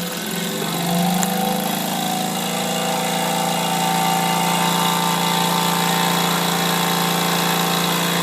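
Wilesco D455 model steam engine opened up for a quick burst of speed: its running note climbs over the first second, then holds a fast, steady hum over a constant hiss of steam.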